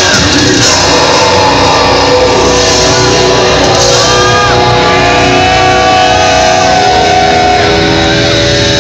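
Death metal band playing live, loud, heard from within the club crowd.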